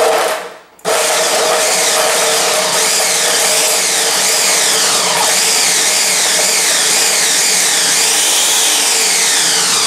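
Ninja Mega Kitchen System 1500-watt, 2-horsepower blender motor running on pulse, its blade chopping a load of spinach, carrots and other hard vegetables. It starts about a second in and then runs steadily at full speed.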